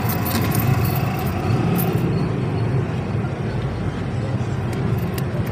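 Steady background traffic noise, with a few faint light clicks of a thin pin tool working on a metal watch bracelet link.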